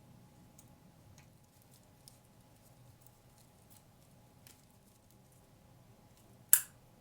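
Faint scattered ticks of dried flowers and stems being handled, then near the end a single sharp snip of scissors cutting through a stem.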